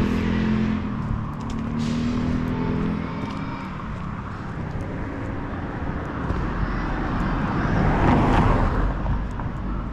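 Urban road traffic: a vehicle engine running with a steady low hum, then a car passing that swells to its loudest near the end and fades.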